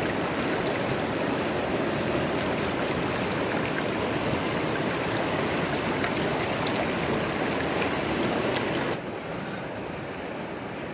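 Steady rush of river water running over rocks, with faint scattered clicks over it. About nine seconds in, it drops to a quieter, duller rush.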